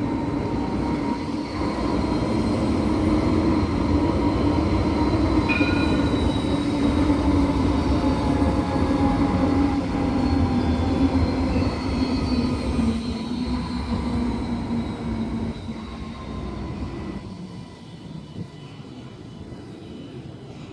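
Coupled Alstom Citadis X05 light-rail trams running through the stop. Their motor hum falls slowly in pitch, and the sound fades away after about sixteen seconds.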